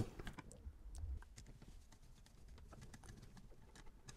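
Faint, scattered small clicks and taps of hands working a wire onto a wall switch's terminal screw with a screwdriver, a little louder about a second in.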